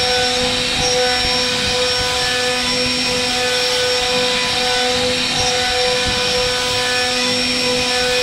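CNC router spindle whining steadily at speed as its bit routs a groove along a wooden door panel, the high steady tone over a continuous rasp of wood being cut.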